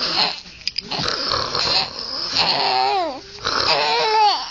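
Baby laughing: breathy, wheezing gasps of laughter, then two high, wavering squeals in the second half.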